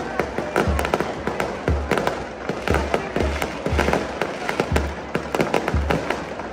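Fireworks going off overhead in a rapid string of sharp bangs and crackles, with a regular low thump about twice a second.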